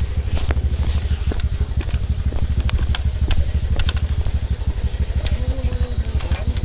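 An engine running steadily, a rapid, even low pulsing, with scattered clicks and rattles over it.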